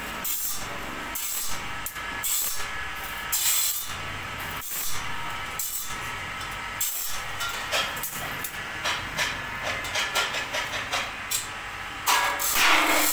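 Irregular metallic scraping and knocks of steel bars being worked by hand with a wrench-type tool, over a steady hiss, growing louder near the end.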